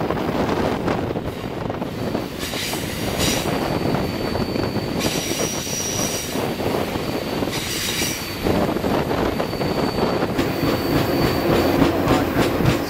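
Passenger train running on curved track, the rumble of its cars steady, with wheel flanges squealing on and off in high, thin tones as the wheels grind through the curve.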